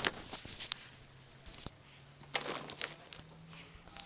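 Rustling and a series of light clicks and knocks as packaging and parts are handled, with a stretch of rustling about two and a half seconds in.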